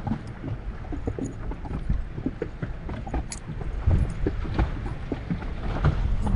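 Choppy lake water lapping and slapping against a fishing boat's hull, with a low wind rumble on the microphone and many small scattered knocks and clicks.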